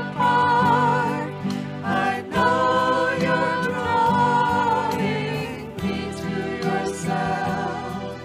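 Congregational worship singing: voices holding long, wavering sung notes over a steady instrumental accompaniment.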